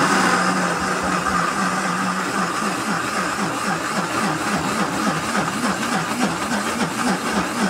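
Mondial countertop blender motor running under load, chopping candied fruit and raisins in sweet moscatel wine. From about two and a half seconds in its pitch wobbles up and down about three times a second as the jar is rocked on its base and the load shifts.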